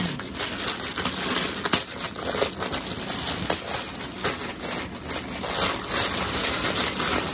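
Thin clear plastic packaging crinkling and rustling in the hands as a purse is unwrapped from its bag, with many small crackles throughout.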